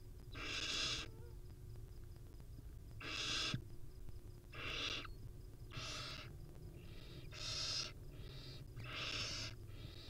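Barn owl chicks giving raspy, hissing begging calls, about eight in a row of half a second to a second each, some louder and some fainter, over a low steady hum.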